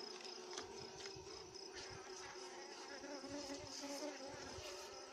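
Honeybees buzzing steadily and faintly around their opened nest in a hollow tree trunk, with a few light clicks from handling the comb and wood.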